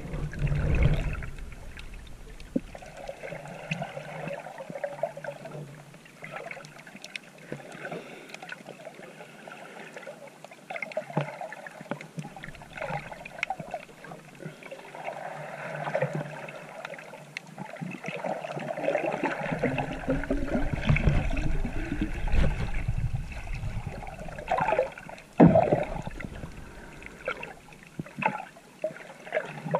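Water sloshing and gurgling around a GoPro camera in its waterproof housing as a swimmer moves through the sea, with scattered small clicks and a few louder surges of water.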